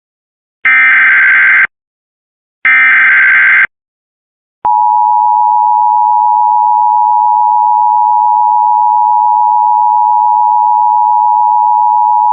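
Emergency Alert System alert opening: two one-second bursts of the screeching digital SAME header data, then, after a short pause about four and a half seconds in, the steady two-tone EAS attention signal. It signals that an emergency weather warning is about to be read.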